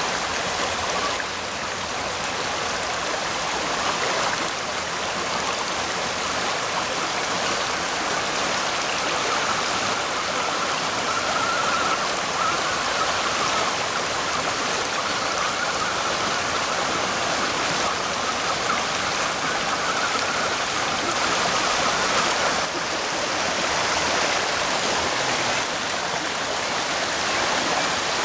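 Fast river water rushing steadily over a shallow rocky riffle.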